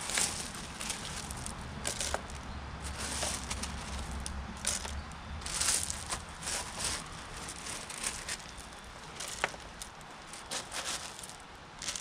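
Gravel being handled and dropped into a flower pot by hand: irregular crunching and rattling of small stones, with scattered sharp clicks.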